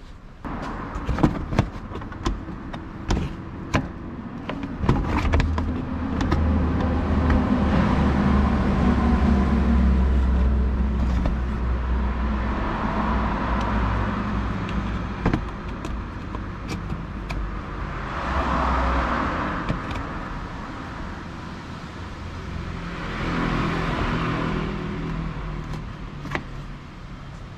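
A motor vehicle engine running, with a strong steady low hum that swells and fades several times, after a few sharp clicks in the first four seconds.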